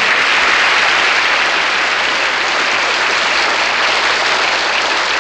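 Studio audience applauding steadily, a dense clapping that thins slightly near the end.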